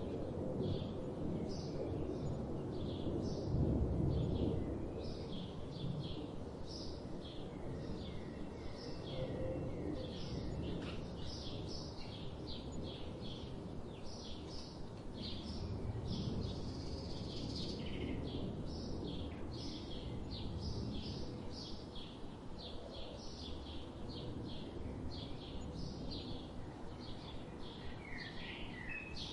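Birds chirping in quick, short repeated notes over a steady low background rumble.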